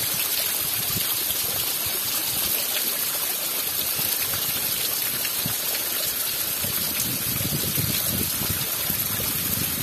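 Heavy rain falling steadily, a dense even hiss of water.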